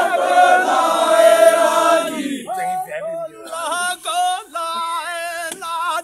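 Group of men chanting as they haul a large log by hand. The crowd holds one long sung note for about two seconds, then a lone man sings a wavering solo call.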